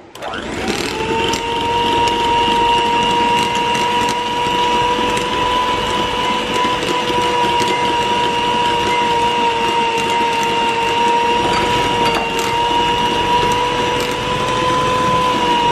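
Electric hand mixer running at one steady speed, its twin wire beaters creaming softened butter in a glass bowl as sugar is added gradually. The motor whine comes up within the first second and holds level throughout.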